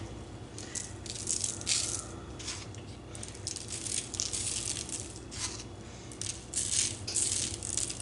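Coarse salt sprinkled by hand, the grains pattering onto parchment paper and egg-washed dough in a series of short, irregular sprinkles.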